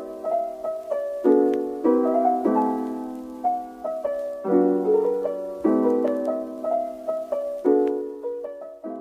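Gentle background music on piano: a simple melody over chords that ring and fade, a new chord about every second.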